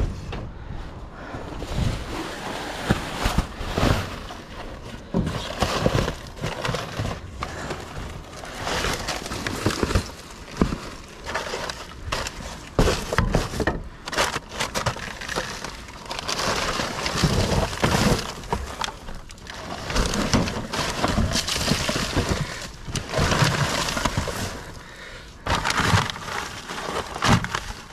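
Trash being rummaged through by hand in a dumpster: continuous rustling and clattering of debris, with many sharp knocks and bangs at irregular intervals as objects are shifted and dropped.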